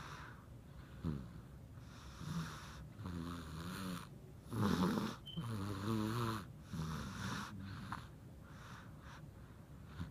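Snoring from someone asleep: a run of short, wavering snores, roughly one a second, the loudest about halfway through.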